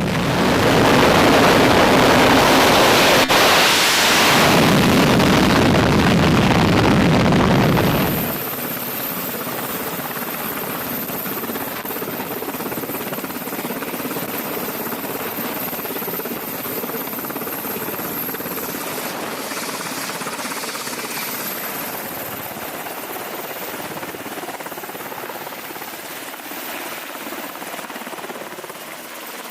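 Loud aircraft jet engine noise for about eight seconds, which cuts off abruptly. Steadier, quieter aircraft engine noise with a thin high whine follows.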